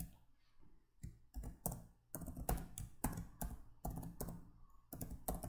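Typing on a computer keyboard: about a dozen separate keystroke clicks at an uneven pace, starting about a second in, as a password is keyed in.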